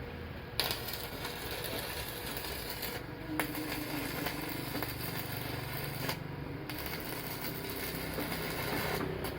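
Welding machine running on test: a steady hum with many small clicks throughout, with brief dips about three, six and nine seconds in.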